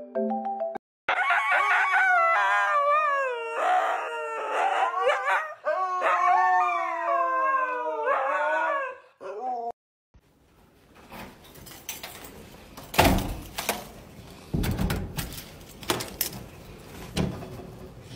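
A dog howling in long, wavering calls that glide up and down in pitch, lasting about eight seconds. After a short silence come footsteps on carpet and several sharp knocks and clicks at a door.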